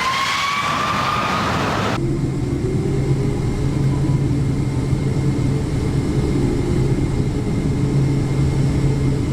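Jet airliner engine running: a loud rush with a slowly rising whine, cut off abruptly after about two seconds by a steady low hum.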